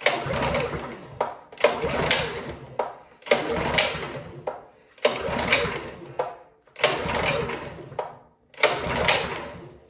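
Recoil starter of a Champion 224cc generator pulled six times, about every second and a half, the engine cranking over with the choke on but never catching. The no-start is a fuel problem, traced to a dirty carburetor.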